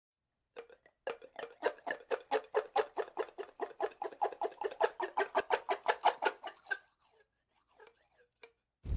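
A rapid, even run of sharp clicks or taps, about five a second, stopping about seven seconds in, followed by a few scattered clicks.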